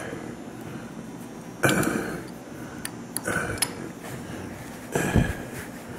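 Chuck key turning the camlock cams on a lathe spindle nose to lock a 5C collet chuck in place: a few separate metallic knocks and sharp clicks as the cams are snugged up.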